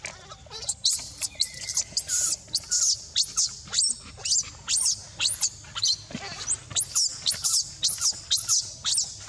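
Baby macaque screaming in distress: a steady string of very high-pitched shrieks, each rising and falling in pitch, about two a second.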